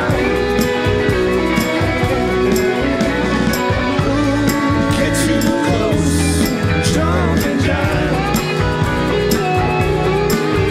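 Live rock band playing: electric guitars with bent, sustained notes over bass and a drum kit with cymbal hits, at a steady loud level.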